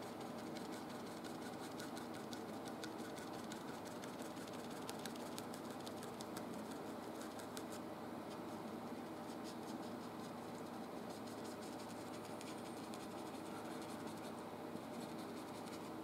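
Thin artist's brush scratching and dabbing oil paint onto canvas in quick short strokes, the strokes coming thick in the first half and thinning out later, over a steady low hiss.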